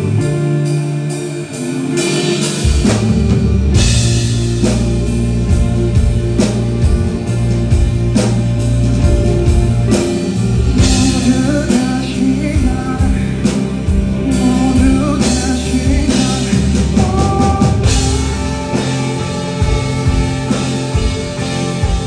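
Live rock band: a male singer over a semi-hollow electric guitar and a drum kit. The full band, drums and bass included, comes in about two and a half seconds in, and the singing runs over it.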